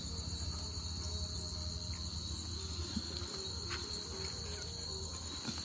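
Crickets chirping in a steady, continuous high trill, over a low steady hum.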